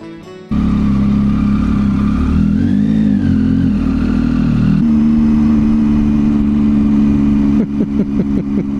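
Triumph Tiger 800's three-cylinder engine running while the bike is ridden, with the revs rising and falling once about three seconds in and a quick run of pulses near the end. A brief bit of guitar music stops abruptly half a second in.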